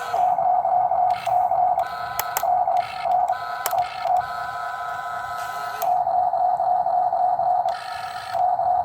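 Small electric motors of a Huina remote-control toy excavator whining as its arm and bucket move, the whine stepping louder and quieter as the motions start and stop about every second, with a few light clicks.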